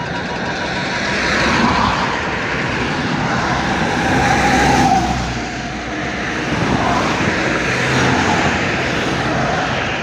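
Traffic passing on a highway: vehicles go by, the road noise swelling about two seconds in and again around four to five seconds before easing.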